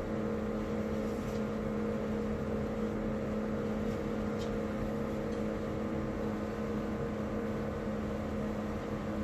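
Steady mechanical hum of a kitchen appliance or fan, with a few faint clicks of a knife cutting through the set chocolate biscuit cake.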